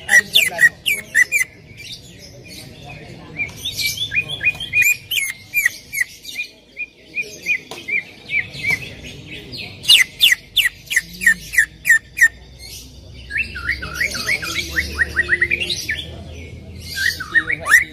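Cucak ijo (greater green leafbird) singing: fast runs of sharp, downward-sweeping chirps and whistles in phrases of one to three seconds, with short pauses between them. It is a provoking song ('pancingan') played to make a caged cucak ijo answer.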